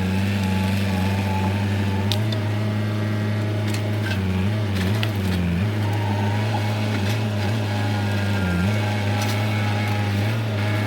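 Diesel engine of heavy land-clearing equipment running steadily, its pitch dipping briefly twice, while wood and brush crack and snap with scattered sharp cracks.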